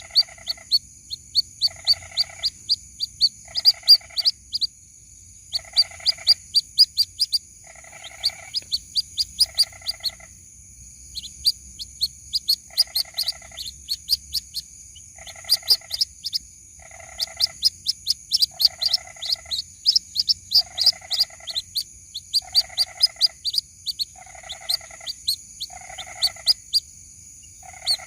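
White-breasted waterhen chicks calling: rapid series of short, high cheeps, with a lower buzzy pulsed call repeating about once a second and a brief pause near the middle. A steady high whine runs underneath.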